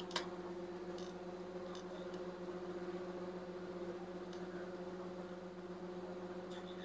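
Low steady hum with a few faint clicks as wires and connectors are handled on the water heater's circuit board.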